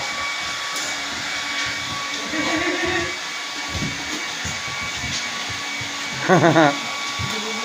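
Hair dryer blowing steadily. About six seconds in comes a brief, loud, wavering cry.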